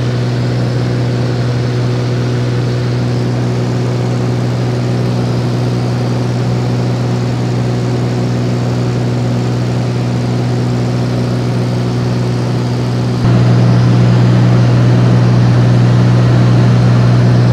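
Large engine running with a steady low drone, which jumps suddenly louder and rougher about 13 seconds in.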